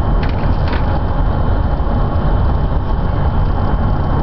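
Car cabin noise at highway speed: a steady, loud low rumble of tyres and engine, with a faint steady high whine.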